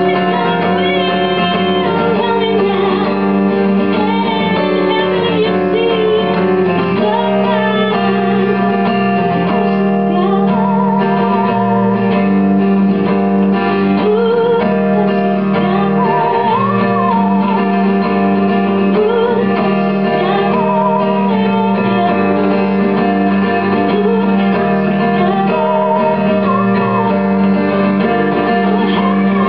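Live acoustic duo: a woman singing a slow melody with vibrato over two acoustic guitars, one strummed and one picked.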